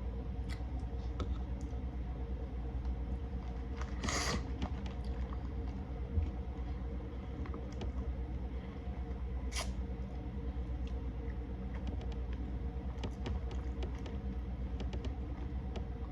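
Close-miked eating sounds: scattered small mouth clicks and smacks over a steady low hum, with two short breathy bursts, one about four seconds in and one near ten seconds.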